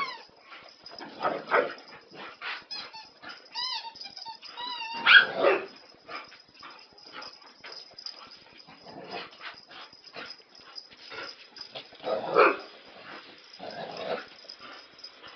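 Dogs, a border collie and a chihuahua, barking while they play, in short bursts with the loudest about five seconds in, and high arching yelps and whines near the start and around four seconds.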